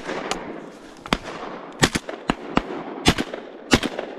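A rapid volley of shotgun blasts from several guns, including a Remington V3 Pro semi-automatic: about a dozen sharp reports in four seconds, some in quick pairs, over a continuous rumbling wash.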